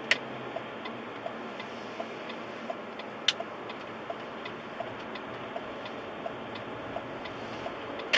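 A car's turn-signal indicator ticking steadily, about three ticks a second, over the steady road noise inside the cabin. A few sharper knocks stand out, the loudest about three seconds in.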